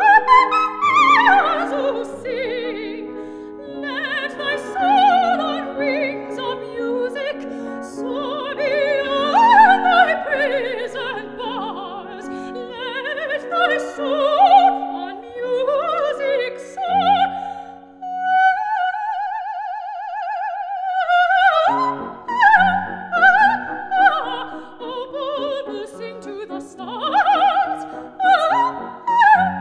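Operatic soprano singing with grand piano accompaniment. About two-thirds of the way through, the piano drops out and a single high note is held alone with vibrato for about three seconds before the piano comes back in.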